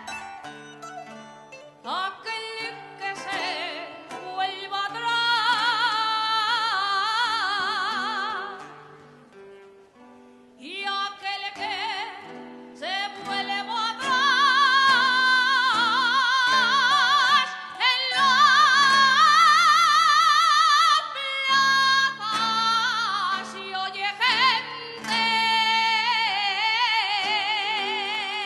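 Female soprano singing with wide vibrato over a plucked string ensemble of bandurrias and guitars. The voice nearly stops about nine seconds in, then comes back with long held notes.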